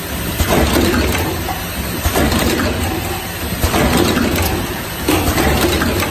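Automatic lotion pump assembly machine running: a steady low hum under a burst of clattering and sharp clicks that repeats about every second and a half as the rotary table indexes and the stations work the pumps.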